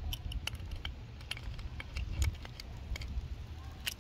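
Ratcheting spanner wrench clicking in short irregular strokes, a few clicks a second, as it tightens the nut on a side stand's shoulder pivot screw.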